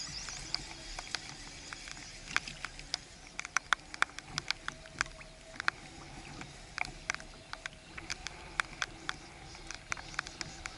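Irregular sharp taps and ticks, several a second at their densest, over a low steady wash of wind and choppy water around a kayak.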